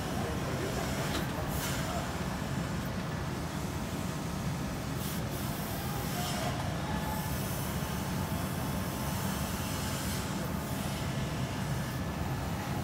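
Vacuum tube lifter's vacuum pump running with a steady drone, with brief hisses of air now and then as the suction head grips and lets go of boxes.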